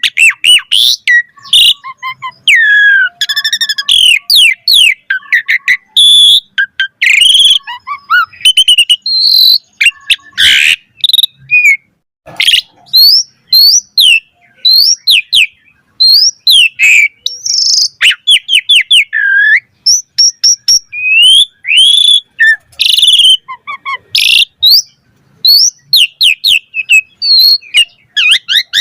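Javan pied starling (jalak suren) in full song: a fast, varied run of loud whistles, slurred notes, chirps and rattling trills, broken only by brief pauses.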